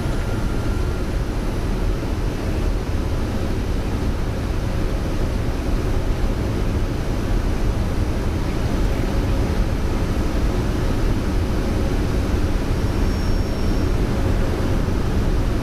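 Steady, even rumble on the flight deck of a Boeing 747-200 on final approach with gear down and flaps 30: airflow over the airframe and the engines running at approach power.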